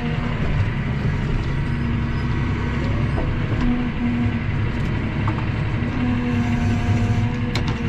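A vehicle engine running steadily close by: a continuous low rumble with a steady hum.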